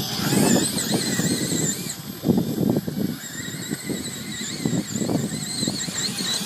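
Hubsan X4 mini quadcopter's motors whining high, the pitch wavering up and down as they fight strong gusts, over wind buffeting the microphone.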